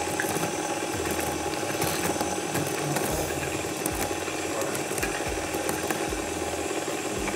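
Electric stand mixer running steadily, its beater churning butter with granulated sugar, which makes it rattle and grind. A wooden rolling pin crushing walnuts on the countertop adds several low thumps in the second half.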